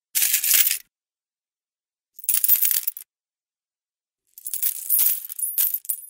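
Handfuls of metal coins being grabbed, jingling and clinking: two short grabs under a second each, then a longer grab of several jingles near the end.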